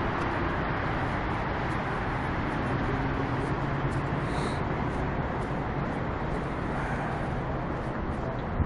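Distant road traffic: a steady, even rush of passing cars.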